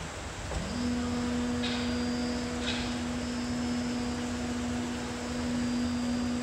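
Hydraulic system of a plastic injection moulding machine running with a steady mechanical hum. About a second in, a steady whine begins with a short upward glide and then holds one pitch. Two brief hisses come a second apart, near two and three seconds in.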